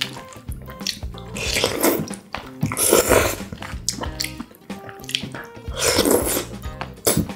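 Close-miked slurping of saucy black-bean instant noodles (jjapaguri): three long wet slurps, the first about two seconds in, then at about three and six seconds, with a short sharp click near the end.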